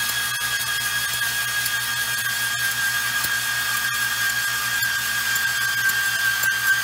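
Portable band saw cutting through a rusty steel bar: the motor and blade give a steady high-pitched whine over the hiss of the teeth biting the metal.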